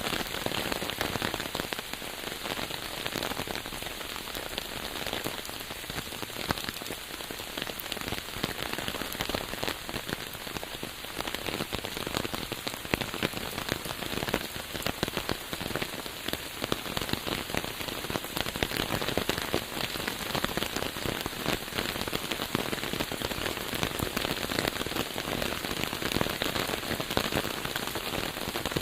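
Steady rain falling on a surface, a dense hiss of countless drops with fine individual drop ticks and no breaks.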